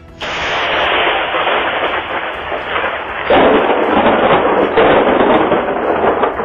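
Thunder from a very close lightning strike: a sudden crack, then loud rumbling that surges again about three seconds in and dies away near the end.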